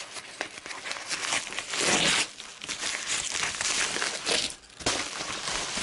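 Yellow padded paper mailer crinkling and tearing as it is pulled open by hand, with dense rustling that is loudest about two seconds in.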